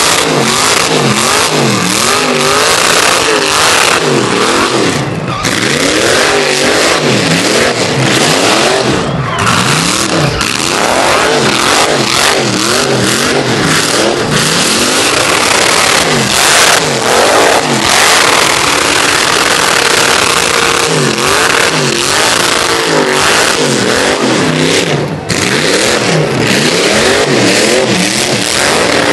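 Truck engine revving hard during a burnout, its pitch rising and falling over and over, with the loud hiss of rear tyres spinning on the pavement.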